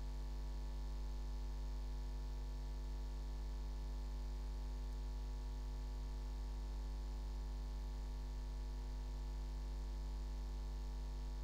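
Steady electrical mains hum: a low, unchanging drone with a ladder of evenly spaced overtones.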